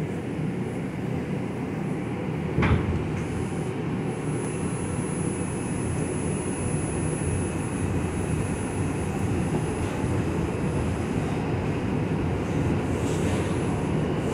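R142 subway train pulling out of a station and picking up speed, heard from inside the car: a steady running rumble that grows slightly louder, with a single knock about three seconds in.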